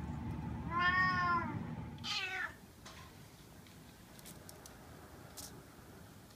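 Bengal cat meowing twice, asking to be let outside: a long meow about a second in, then a shorter one that falls in pitch just after.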